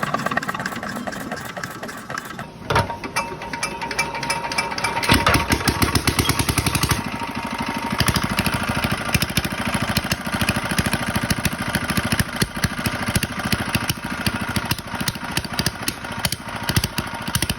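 Small single-cylinder Chinese diesel engine of about 5 HP running with a rapid, even knocking beat, getting louder about five seconds in.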